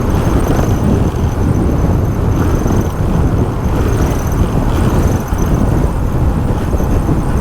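Motorcycle riding at speed on a highway: a steady, loud rush of wind and road noise.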